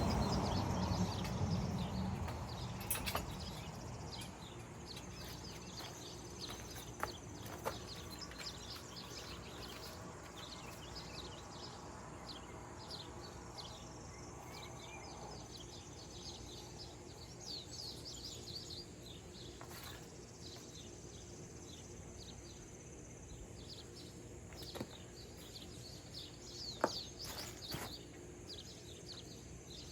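Birds chirping over faint outdoor background noise, with a few light knocks scattered through and a faint steady hum for several seconds in the middle.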